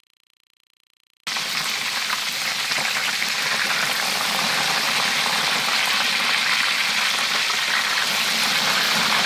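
Breaded pork schnitzels sizzling in hot oil in a deep pan, a steady hiss that starts suddenly a little over a second in.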